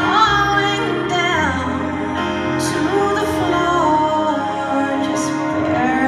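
A woman singing a song live into a microphone, accompanied by keyboards.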